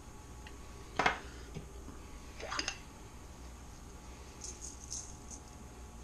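Kitchen handling sounds while salt and pepper are added: a sharp knock about a second in, a short rattle a moment later, then a few faint gritty shakes near the end.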